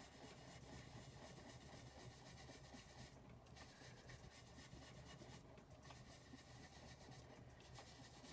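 Faint, scratchy rubbing on card stock as ink is worked onto a card over a paper mask, with brief pauses about three, five and a half and seven seconds in.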